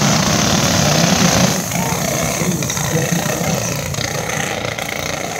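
Engines of a pack of small box stock dirt-track race cars running past together. The sound is loudest for about the first second and a half, then drops as they pull away.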